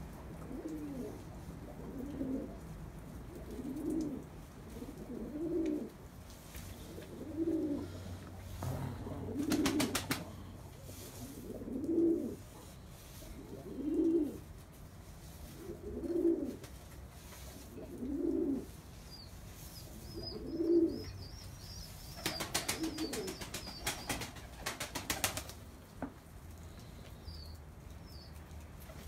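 Domestic pigeons cooing: one low coo repeated about every two seconds, around eleven times. Near the end comes a flurry of wing flaps.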